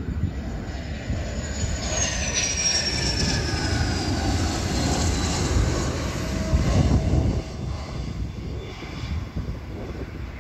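F-16 fighter jet's single turbofan engine passing low: a steady jet roar with a high whine that falls in pitch over a few seconds as the jet goes by, loudest about seven seconds in.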